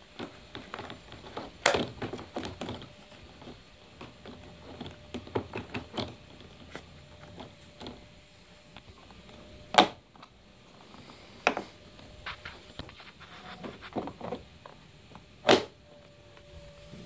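Plastic lower grille being fitted into a car's plastic front bumper cover by hand: scattered light knocks and rattles of plastic on plastic, with four sharp snaps as clips click into place.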